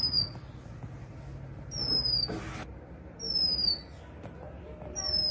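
Oriental magpie-robin calling: a clear, high, downslurred whistle repeated about every second and a half.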